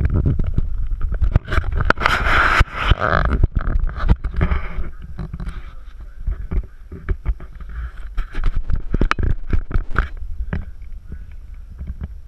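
Handling noise from a handheld camera: a steady low rumble on the microphone with many small knocks and scrapes, and a burst of hiss about two seconds in.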